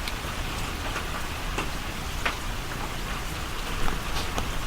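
Steady rain falling, an even hiss with scattered drip ticks.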